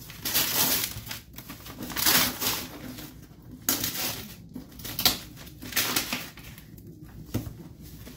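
Brown kraft parcel paper being torn and crumpled off a cardboard shipping box in a series of short rips.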